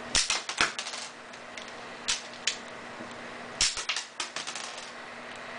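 Sharp plastic clicks from a Lego brickshooter pistol firing and cycling its rubber-band mechanism, with Lego plates clattering onto a wooden tabletop. The clicks come in a quick burst near the start, a couple of single clicks in the middle, and a second burst about two-thirds through.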